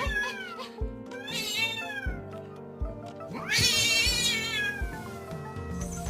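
A cat meowing in drawn-out, falling calls: a shorter one about a second in, then a longer one from about three and a half seconds in, over background music with a steady beat.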